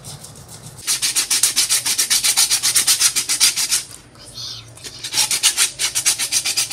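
Sandpaper scrubbed quickly back and forth over the rough outside of a coconut shell, about five or six strokes a second, smoothing the shell. The scrubbing pauses briefly about four seconds in, then starts again.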